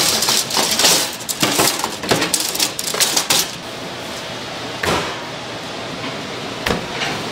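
Kitchen utensils and dishes knocking and clattering: a quick run of sharp knocks and clinks for about three and a half seconds, then a few single knocks.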